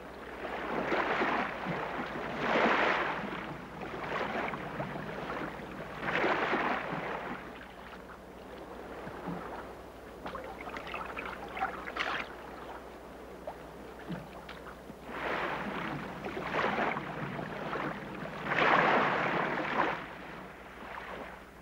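Water splashing and whooshing in irregular bursts a second or two long, a few seconds apart, with quieter lapping of water between them.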